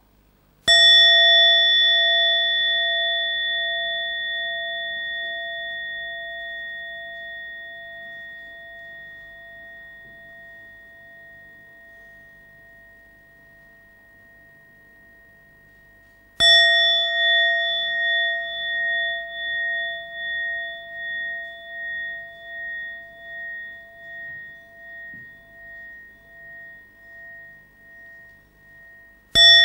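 Small handheld meditation bell struck with a thin stick, invited three times to mark mindful breathing, about three breaths to each sound. It is struck about a second in and again about halfway through, and each time rings on for many seconds, fading slowly with a pulsing waver. The third strike comes right at the end.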